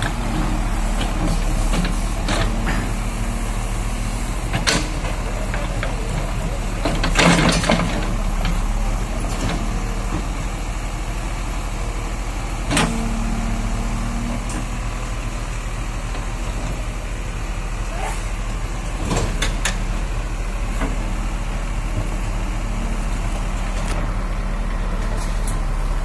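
JCB 3DX backhoe loader's diesel engine running steadily while the backhoe digs, with a few short clanks and scrapes of the bucket in stony soil, the loudest about seven seconds in.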